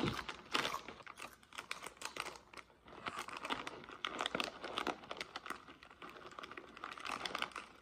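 Small foil snack bag of Cheetos Flavor Shots crinkling as fingers dig in and pick chips out, with many small irregular crackles.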